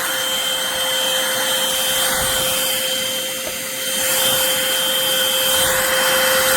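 Eureka corded stick vacuum running: a steady rushing motor noise with a constant whine, growing a little louder about four seconds in.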